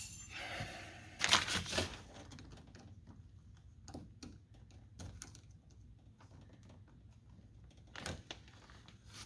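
Irregular clicks, knocks and rattles of car door parts being worked loose by hand, with a short burst of clattering about a second in and another knock near the end.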